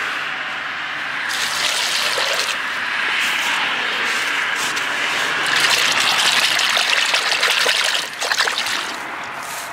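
Water poured into a plastic bait box over a bed of casters, splashing and trickling. The pour gets heavier about halfway through and stops about eight seconds in. A softer sloshing follows as a hand stirs the soaking casters.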